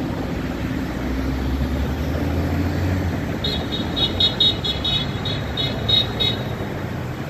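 Busy street traffic driving past, with a low engine rumble from a passing vehicle in the first few seconds. About halfway through, a rapid run of short high-pitched pips, about five a second, lasts roughly three seconds.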